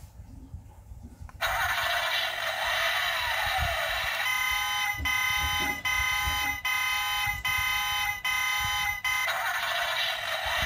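Electronic sound effect from the small built-in speaker of a 1/24 scale diecast Toyota Land Cruiser LC300 model, set off from its remote key fob. It starts suddenly with a hiss and a falling sweep, turns into a buzzy tone pulsing about twice a second, and then the hiss and falling sweep return near the end.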